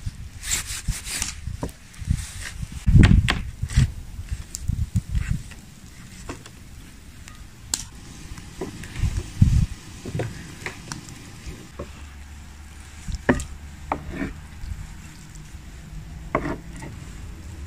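Kitchen knife cutting raw chicken into pieces on a wooden cutting board: irregular knocks and taps of the blade on the board, with a few heavier thuds.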